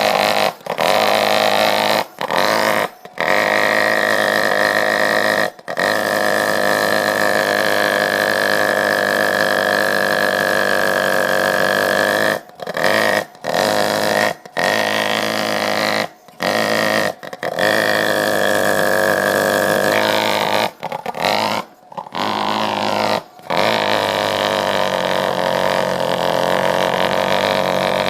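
Lennox pulse furnace with its muffler cut off, running on natural gas: a loud, steady pulsing drone, with a whistling tone above it through much of the middle. The sound cuts out briefly about a dozen times.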